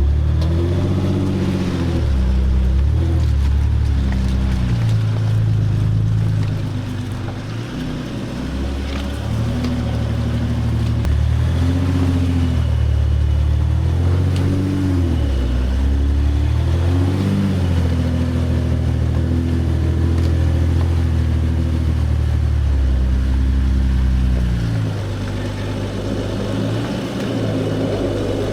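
Diesel engine of a Jeep Gladiator pulling at low speed over a rocky trail, its low drone rising and falling in pitch again and again as the throttle is worked, easing off briefly a few times.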